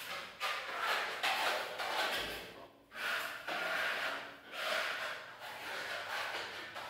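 Hand trowels scraping across a freshly coated wall while a burnt-cement finish is worked on. The strokes are repeated rasping swishes, coming a little faster than one a second.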